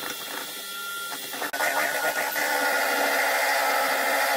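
Electric hand mixer running steadily, its beaters whisking egg whites and icing sugar into meringue in a bowl; it gets louder about a second and a half in.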